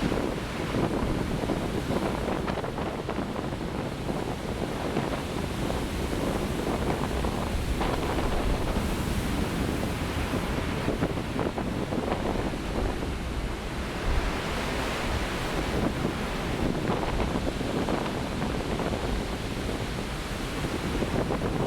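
Heavy winter storm surf breaking and rolling in, a continuous wash of waves, with wind buffeting the microphone.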